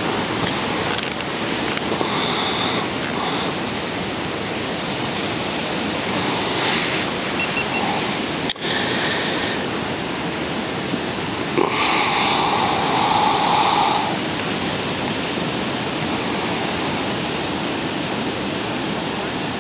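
Steady wind rushing over the microphone and across the open lake, with a stretch of stronger noise about two-thirds of the way through.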